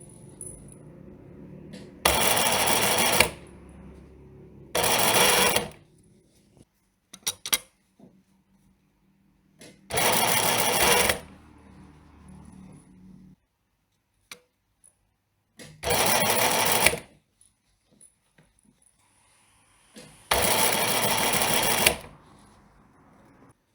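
Sewing machine stitching in five short runs of about a second each, stopping between them, with a few light clicks in one of the pauses.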